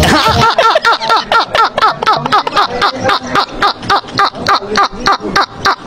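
Men laughing hard: a fast, unbroken run of high-pitched "ha"s, about four a second, each one falling in pitch.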